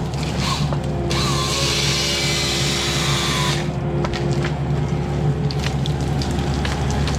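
Diesel engine of land-clearing machinery running steadily while wood snaps and cracks. About a second in, a hissing cut lasts about two and a half seconds: the excavator's GMT040 hydraulic grapple saw going through a tree.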